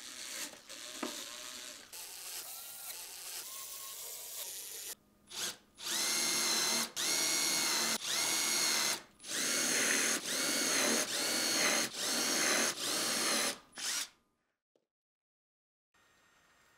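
Bosch cordless impact driver working plywood: a steadier, quieter run for the first five seconds, then about ten short loud bursts from about six seconds in, the motor pitch winding up and back down with each trigger pull.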